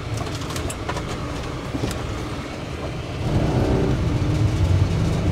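Camper van driving on the road, heard from inside the cab: steady engine and tyre noise that gets louder about three seconds in.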